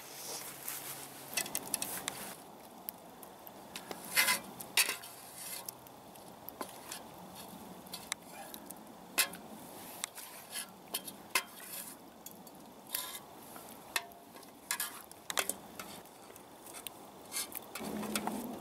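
Steel cookpot and utensils knocking and clinking irregularly, with a wooden spoon stirring chunks of beef in the metal pot.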